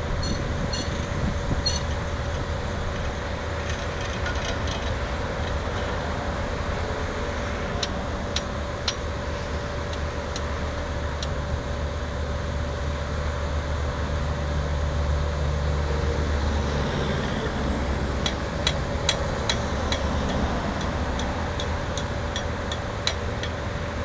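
Engine of a track-mounted soil-nail drill rig running steadily, with a steady whine above it. Sharp metallic ticks come now and then, in a run of about two a second near the end.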